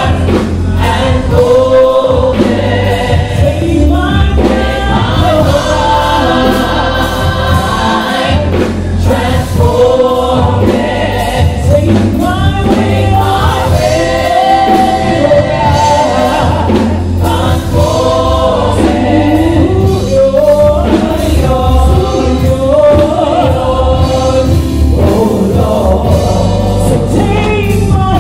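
Women's gospel choir singing, with a lead vocalist out front and the rest of the choir behind, over an accompaniment with a steady low bass.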